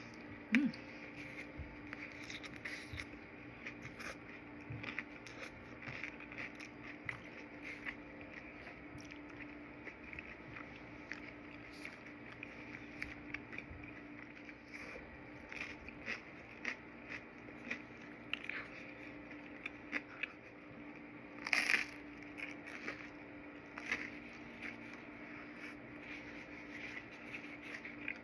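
Close-up eating sounds: crunchy bites and chewing of pizza toast, with many small crackles and mouth clicks and one louder crunch about three quarters of the way through. A steady low hum runs underneath.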